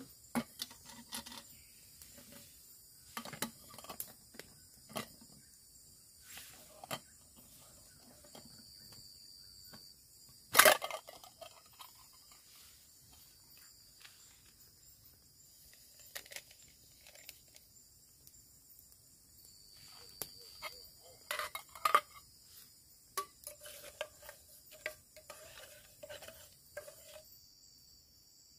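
Irregular clinks and knocks of camp gear or utensils being handled, loudest about ten seconds in and again in a quick pair a little past twenty seconds. Steady high chirring of forest insects runs underneath.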